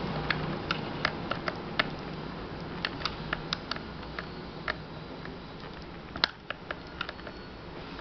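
Sharp, irregular clicks of a small screwdriver and metal parts knocking against an electric fan's plastic motor housing during assembly, a few a second, the loudest about six seconds in, over a low rumble that fades.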